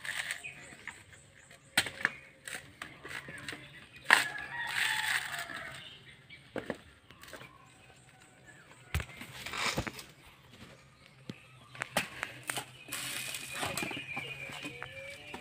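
Scattered knocks and thuds from fresh green coconuts being husked and handled, with a rooster crowing at times.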